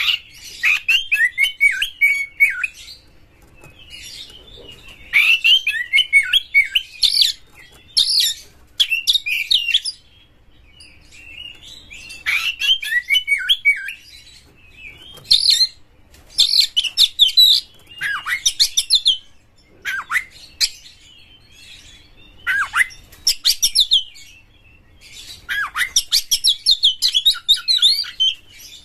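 Oriental magpie-robin (kacer) in full, vigorous song: bursts of rapid, varied whistles and chattering notes, some sliding downward, in runs of one to three seconds separated by short pauses.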